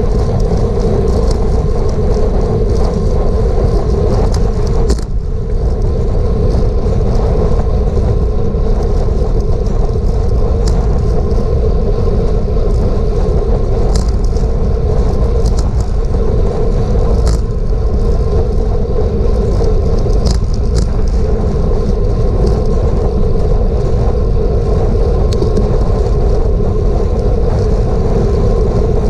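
Steady wind and road noise on a GoPro riding on a racing bicycle at speed, heaviest in the low end, with scattered light clicks.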